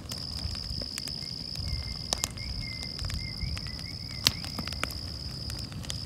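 Insects trilling steadily at one high pitch, with scattered sharp crackles and pops from a burning brush pile; one louder pop about four seconds in.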